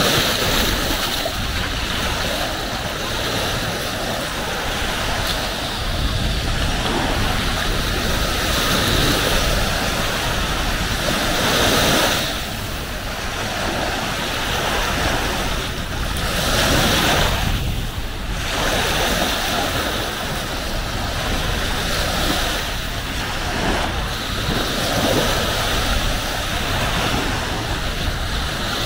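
Sea waves washing onto a beach, swelling and easing every few seconds, with wind on the microphone.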